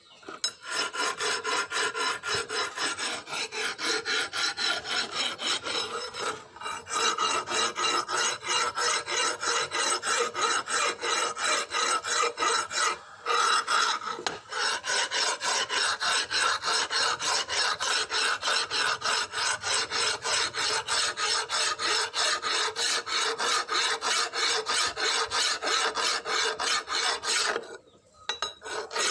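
A hand file rasping in rapid, even back-and-forth strokes, with a faint ringing under the strokes. The strokes pause briefly a few times.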